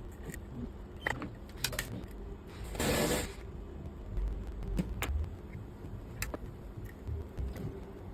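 Small tools clicking and tapping on a repair bench, with a short burst of noise about three seconds in, over a low steady hum.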